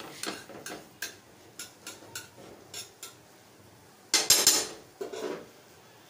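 Metal utensil tapping and clinking on a flat iron griddle (tawa) while scrambled egg is worked, about ten light clicks over the first three seconds. A louder metallic clatter comes about four seconds in, with a shorter one just after five.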